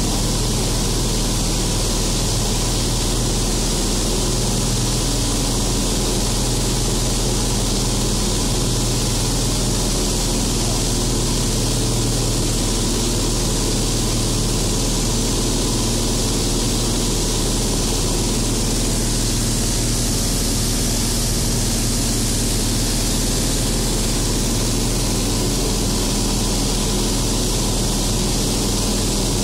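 Light aircraft's piston engine and propeller droning steadily, heard from inside the cockpit, under a strong steady hiss of air rushing past the airframe.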